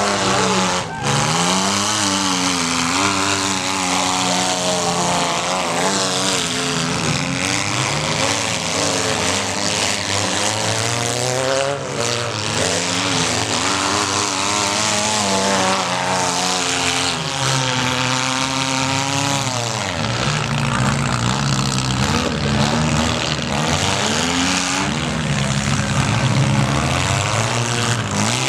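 Several small-car engines revving up and down together during a mini car demolition derby, with now and then a sharp crack of a collision.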